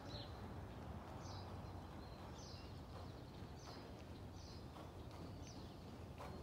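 Faint hoofbeats of a horse cantering on soft arena footing, under a low steady hum. A bird chirps short, high notes that fall in pitch, about once a second.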